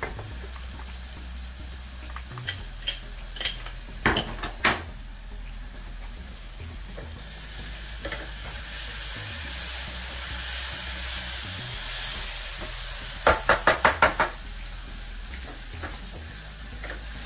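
Onions, garlic and chili sizzling as they saute in a pan, stirred with a spatula. A few sharp metal clicks and knocks of pots and a pressure-cooker lid come in the first five seconds, and a quick run of about six taps of the spatula against the pan about 13 seconds in.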